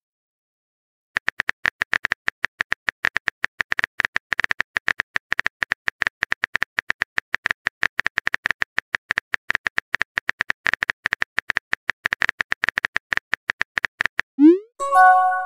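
Phone keyboard typing sound effect: a fast, steady run of key clicks starting about a second in. Near the end a rising pop and a short chime play as the message is sent.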